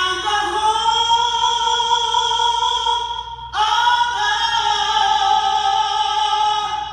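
A woman singing solo, holding two long notes, the second starting about three and a half seconds in.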